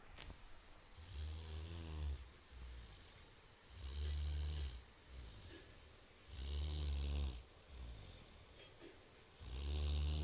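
A sleeper snoring heavily: four long snores, each about a second, coming about every two and a half seconds.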